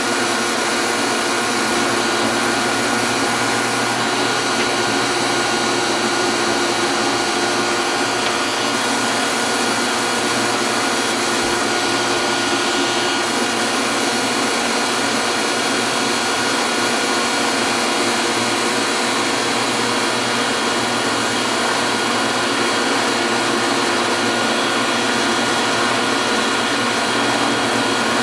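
Metal lathe running steadily under power: a constant mechanical whir with several steady whining tones from its motor and gear train, holding even throughout.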